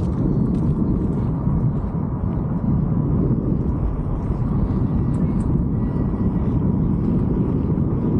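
Wind buffeting the microphone of a helmet camera on a moving e-bike, a steady low rumble. A faint, steady high whine runs underneath.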